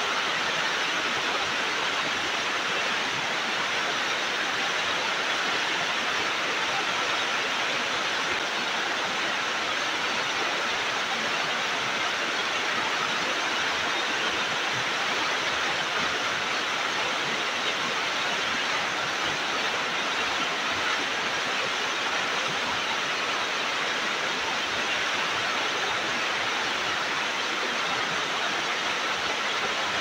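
Mountain waterfall: a steady, even rush of falling water that holds at the same level throughout, with no breaks or separate events.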